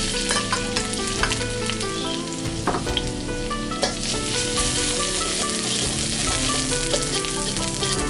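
Minced garlic sizzling in hot oil in a wok. The sizzle starts as it drops in and goes on steadily while a spatula stirs it, with a few clicks of the spatula against the wok. Background music plays under it.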